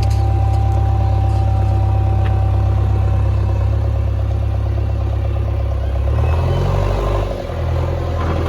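JCB backhoe loader's diesel engine running steadily, with a thin steady whine over it for the first few seconds. Around six to seven seconds in the engine note shifts and briefly dips.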